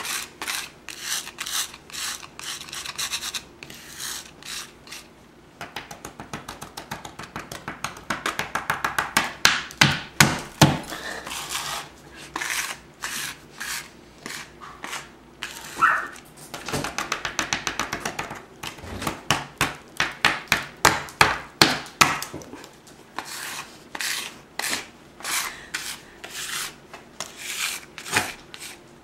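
A plastic card scraping crushed potato chip crumbs across a wooden tabletop, in quick runs of short back-and-forth strokes with brief pauses between runs.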